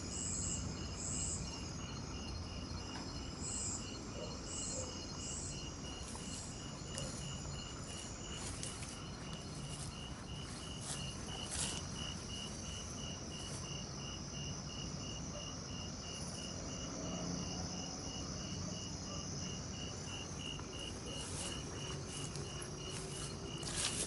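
Night insect chorus: a cricket-like chirp pulsing evenly about three times a second, with continuous higher-pitched trills above it and a few short higher chirps in the first few seconds, over a low background rumble.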